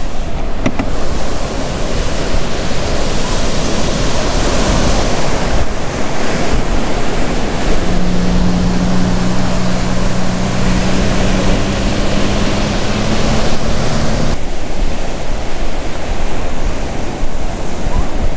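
Loud, steady noise of wind and surf, with wind buffeting the microphone. About eight seconds in, a steady low hum joins for about six seconds and cuts off suddenly.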